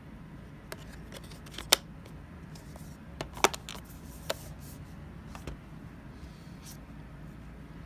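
A few sharp plastic clicks and taps from a Blu-ray disc and steelbook case being handled, the loudest about two seconds in and again about three and a half seconds in, over a low steady hum.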